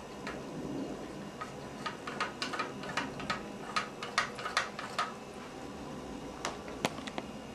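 Cat lapping water from the tip of a bathtub faucet spout: a run of quick wet clicks, about three or four a second, with two more clicks near the end.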